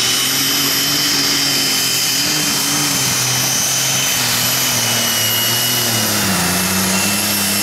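Methanol-fuelled Super Stock pulling tractor engine running flat out under load as it drags the weight-transfer sledge, with a high steady whine over the engine note. The engine's pitch drops about six seconds in as the load builds.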